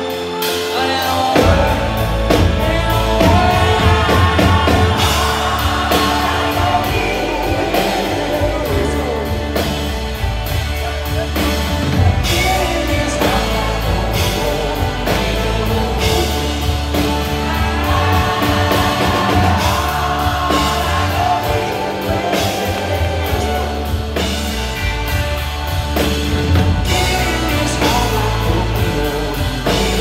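Live country-rock band playing loud through a concert PA: electric guitars, bass guitar and drum kit. The bass and drums come in about a second and a half in, under a lead guitar line.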